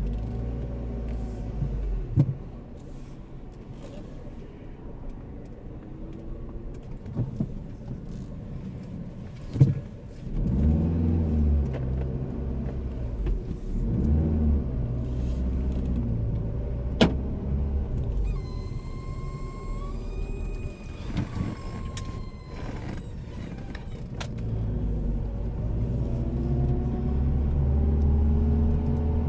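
Car engine and road noise heard from inside the cabin: quiet low running at first, then the engine note rising as the car pulls away about ten seconds in, easing, and rising again near the end. A few sharp clicks, and a higher whining tone that steps up and down for a few seconds past the middle.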